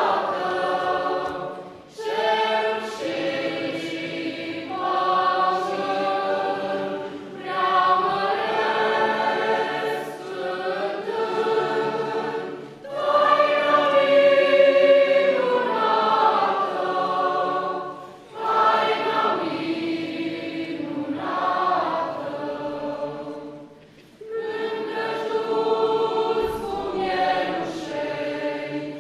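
A choir singing phrase by phrase, with short breaks for breath between the lines.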